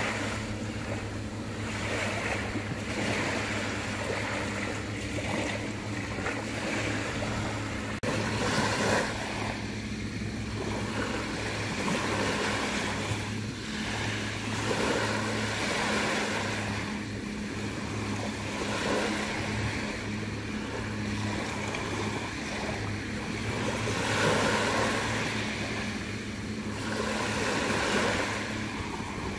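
Sea waves washing in, swelling and falling back every few seconds, over a steady low hum.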